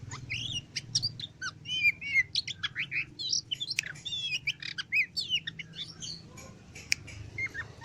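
Oriental magpie-robin (kacer) singing a fast, varied run of whistles, trills and chattering notes, thinning to a few calls a little after six seconds in.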